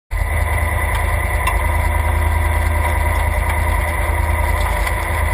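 Off-road race vehicle's engine idling steadily, with a strong low rumble.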